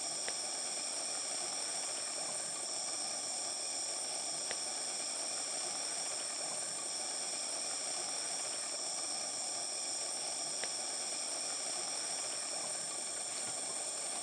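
Rainforest insect chorus: a steady, high-pitched drone of several layered tones, with three faint short clicks.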